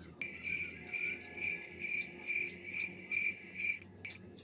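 Cricket chirping: a high, steady trill pulsing about four times a second, starting just after the beginning and cutting off shortly before the end.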